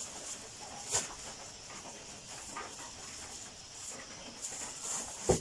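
Thin plastic bags of rambutan crinkling and rustling in fits as they are handled, with a click about a second in and a sharp thump just before the end.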